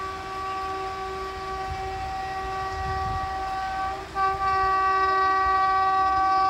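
WAP-7 electric locomotive of an approaching express train sounding its horn: one long steady blast, broken off for a moment about four seconds in, then held again louder.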